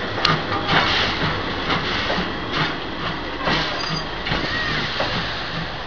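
Taiwan Railways CK124 steam locomotive drawing its train of coaches past at low speed: a steady rumble and hiss with a regular beat about twice a second.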